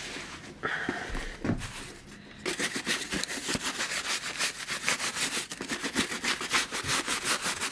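The bristle brush ring of an acrylic CNC dust shoe is scrubbed rapidly back and forth over a leather boot, making a fast, scratchy run of brushing strokes, several a second. The scrubbing starts about two and a half seconds in, after a few handling knocks and a dull thud.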